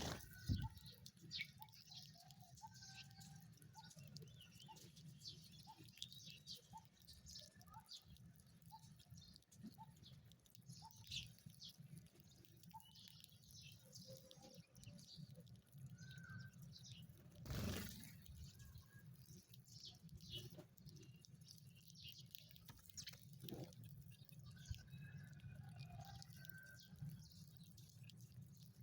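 Sparrows chirping softly: many short, scattered high chirps over a low steady hum, with one brief louder noise a little past the middle.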